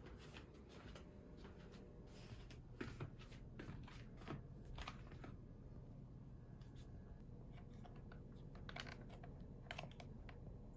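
Faint taps and clicks of footsteps in rubber slide slippers on a wooden floor, then, near the end, a few light taps as bare feet step onto a digital bathroom scale.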